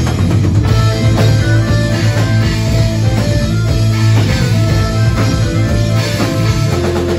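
Live rock band playing loudly: electric guitars and bass over a drum kit.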